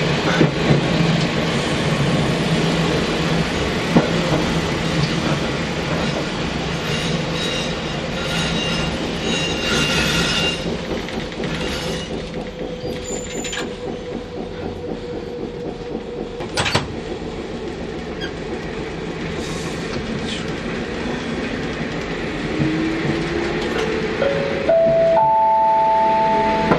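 Fukui Railway 200 series tram running along street track, heard from inside at the front: steady motor and wheel noise with occasional sharp clicks. Near the end a whine climbs in pitch in steps.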